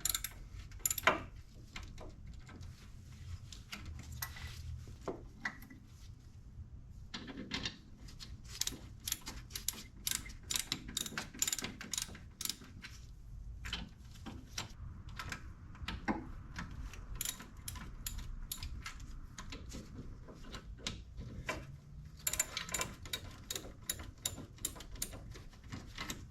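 Hand socket ratchet clicking in quick runs with short pauses between them, as the four bolts of a Toyota RAV4 rear wheel hub are tightened a little at a time, corner to corner.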